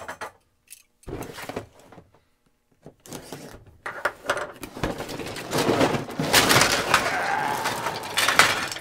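Cardboard box of LEGO Duplo being opened and tipped out: the box rustling and crackling, then plastic bags of bricks and plastic track sections sliding and clattering onto a table. The rustle grows about three seconds in and is densest near the end, with a few sharp clacks.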